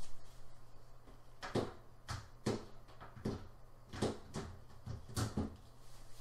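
Tempered-glass side panel being fitted onto a PC case: a string of short knocks and taps of glass against the case frame, about eight over four seconds, over a faint steady low hum.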